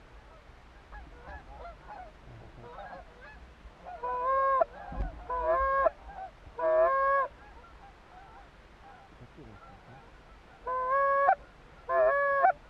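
Goose honking: about five loud honks, each ending in a sharp upward break in pitch, with fainter honks from farther off in between.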